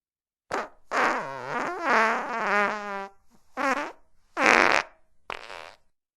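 Fart sound effects: five farts in a row, a short one, a long one of about two seconds whose pitch wavers up and down, then three shorter ones.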